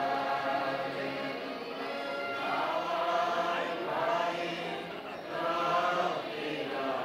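A choir of many voices singing a slow song with long held notes.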